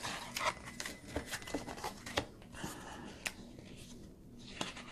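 Tarot cards being handled and turned over one by one: a string of light, irregularly spaced clicks and soft rustles of card stock.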